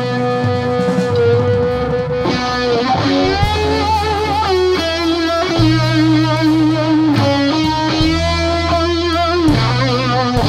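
Background music led by a guitar playing sustained, wavering melody notes over steady low bass notes.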